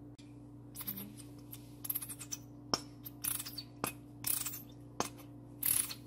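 Plastic honey squeeze bottle being handled and squeezed over a mug: a few sharp clicks and several short hissing spurts of air. A steady low hum runs underneath.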